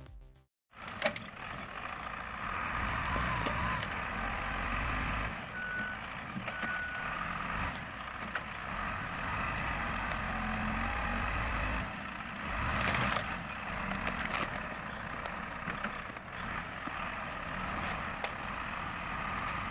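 Heavy machinery running steadily, with two short high beeps about six seconds in.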